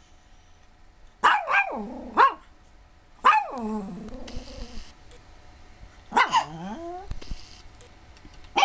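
Dog barking: several groups of short barks, each falling in pitch, one trailing off longer and lower.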